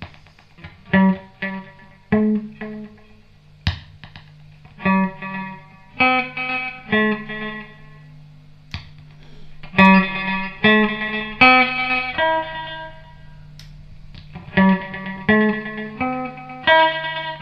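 Electric guitar notes played through an Iwase Electric Voice tube tape echo and Voice tube amplifier, each phrase trailed by echo repeats, over a steady low amplifier hum. Now and then a sharp pop as the echo's heads are switched on and off.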